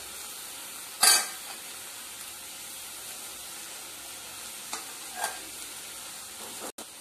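Shredded cabbage frying in oil in an aluminium pressure cooker, a steady sizzle, while a steel ladle stirs it; the ladle knocks sharply against the pot about a second in and twice more, lighter, a little after five seconds.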